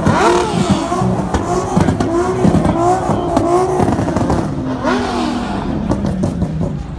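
A car engine revved in quick, repeated throttle blips, its pitch rising and falling about twice a second, with a short held rev about five seconds in.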